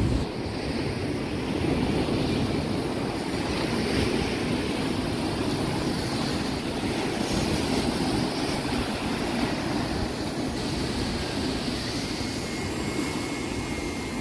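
Rough sea surf breaking and washing over a pebble and rock shore: a steady, fairly loud rushing with a low rumble, with wind on the microphone.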